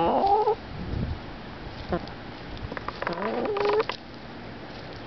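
A hen making two short, pitched calls, one at the start and one about three seconds in, with a few sharp taps of her beak pecking at a smelt on the ground.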